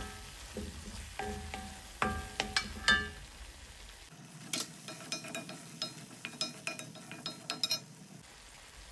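Garlic and red chilli paste frying in sesame oil in a pan, with a steady sizzle while it is stirred: the spoon clicks and clinks against the pan several times.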